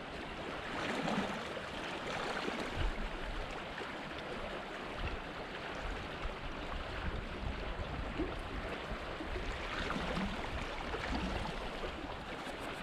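Rio Costilla (Costilla Creek) running over a rocky riffle: a steady rush of flowing water, with occasional low rumbles.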